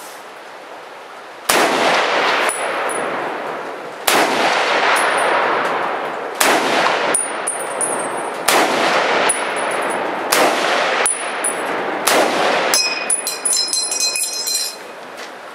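M1 Garand rifle in .30-06 firing a string of shots about two seconds apart, with short metallic clinks after several of them. Near the end the last shot is followed by a ringing metallic ping lasting about two seconds: the empty en-bloc clip ejecting as the rifle runs dry.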